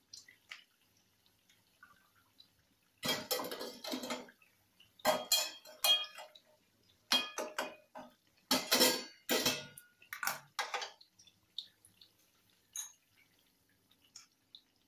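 A metal spoon clattering and scraping against a steel cooking pot while the chutney is stirred and checked. It comes in about five short bursts, starting about three seconds in.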